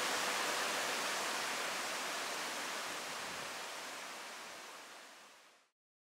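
Steady rush of a mountain stream. It fades gradually from about halfway and is gone shortly before the end.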